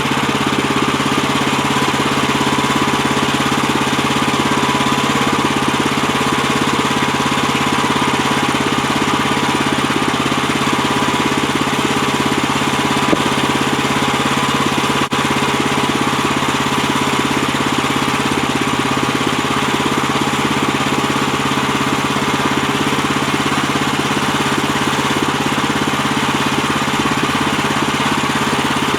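Woodland Mills HM130MAX portable bandsaw mill's gas engine running steadily, with a continuous whine from the band blade drive.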